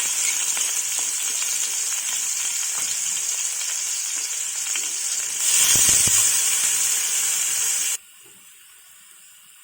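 Chopped onion sizzling as it fries in hot oil in a pan. The sizzle swells briefly about five and a half seconds in, then cuts off abruptly about eight seconds in, leaving only a faint hiss.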